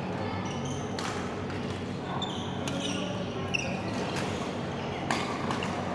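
Badminton rackets striking shuttlecocks, several sharp hits a second or more apart, with short squeaks of shoes on the court floor. A steady low hum runs underneath.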